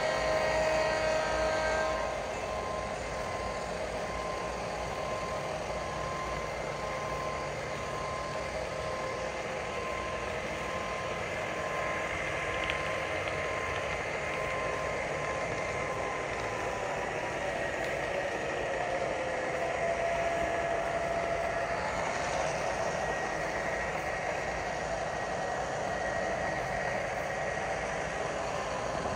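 HO-scale model locomotive running on the layout: a steady engine drone with held whining tones.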